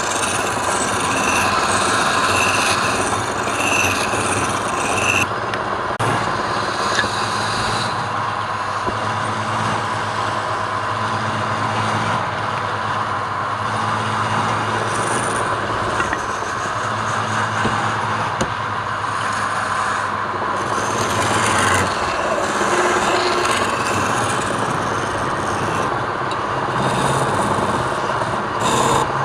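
Woodworking power tool running steadily with a low motor hum while it shapes wood, its cutting noise shifting a little in a few places.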